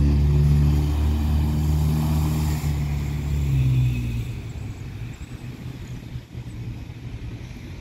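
Pickup truck driving past through standing floodwater: engine running with tyres swishing through the water, fading away after about four seconds.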